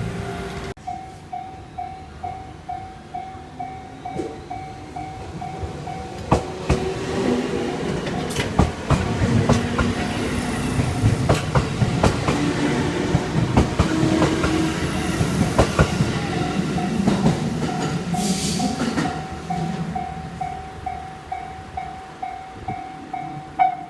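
Japanese level-crossing warning bell ringing about twice a second as an electric train runs through the crossing, its wheels clattering over the rail joints in rapid clicks. The bell keeps dinging once the train has gone by.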